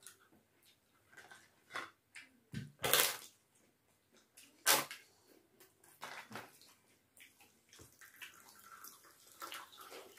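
Close-up eating sounds of a meal eaten by hand from steel plates: rice and dal being mixed and squished, scattered small clinks and crunches, and two loud crisp crunches about three and five seconds in. Near the end, dal is poured from a steel bowl onto rice.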